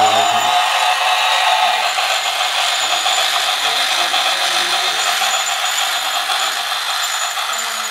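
A toy train running along its track, with a steady whir from its small motor and the rattle of its wheels.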